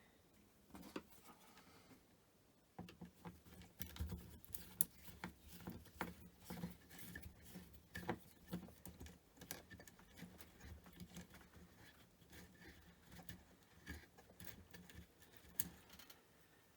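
Screwdriver working the screws of a BBC Model B power supply unit: a string of faint clicks, ticks and scrapes of metal on metal, starting about three seconds in.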